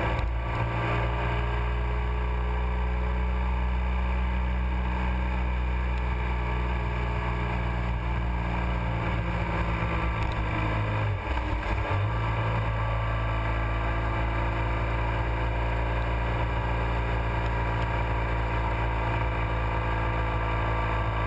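Motorcycle engine running steadily at road speed, with wind and road noise. About eleven seconds in, the engine note drops briefly and then comes back.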